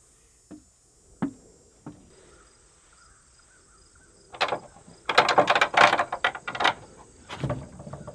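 Knocking and rattling at a wooden door: a few single sharp taps, then a loud dense clatter of knocks and rattles from about four and a half to seven seconds in, with a couple of duller thumps after. Crickets chirp steadily underneath.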